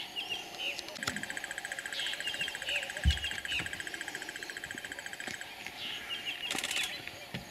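Bush sounds: birds chirping, with a fast, even trill from about one second in to five and a half seconds in. A single low thump comes about three seconds in.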